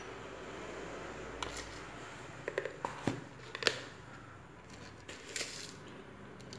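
A few light clicks and taps from a spoon and containers being handled around a steel mixing bowl, clustered between about one and a half and four seconds in, then a brief soft rustle, over a low steady room hiss.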